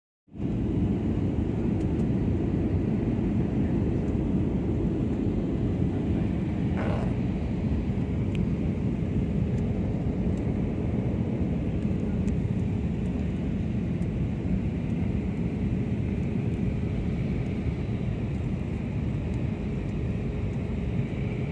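Steady cabin noise inside a passenger jet on its descent: a low, even rumble of engines and airflow with a faint steady hum.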